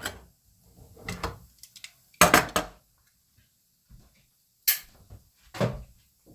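A few separate sharp knocks and clatters of kitchenware, the loudest a quick cluster a little over two seconds in.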